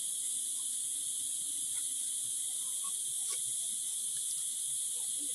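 A steady high-pitched chorus of crickets, with a few faint clicks and rustles of leaf-wrapped parcels being settled into a metal pot.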